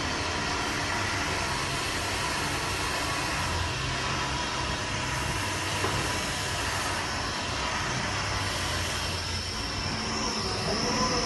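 Tower crane slewing, heard from inside the operator's cab: a steady mechanical hum and hiss of the slew drive, with a thin high whine coming in near the end.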